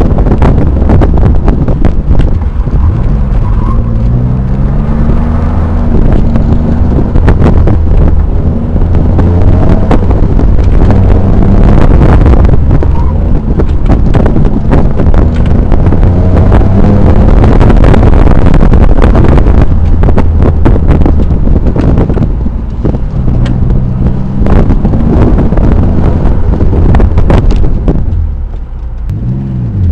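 Twin-turbocharged 3.5-litre V6 of a 2004 Nissan 350Z roadster being driven hard, its pitch climbing and falling several times, with heavy wind buffeting on the microphone. Very loud throughout.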